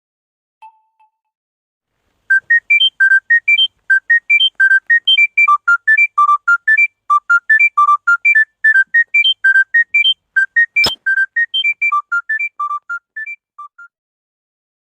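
Phone ringtone: a fast electronic melody of short, pure, whistle-like notes, about five a second, that fades out near the end. A single sharp click sounds once partway through.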